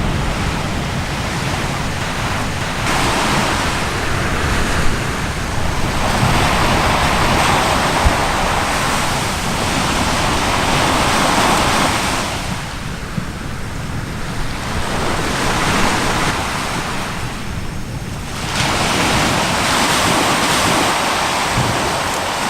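Sea waves washing and wind buffeting the microphone, a loud rushing noise that swells and eases every few seconds.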